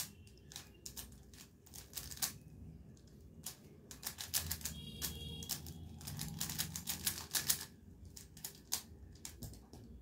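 A 3x3 Rubik's cube being turned fast in the hands: rapid runs of plastic clicks and clacks as the layers snap round during a speed-solve. The clicking is densest about halfway through and thins out near the end.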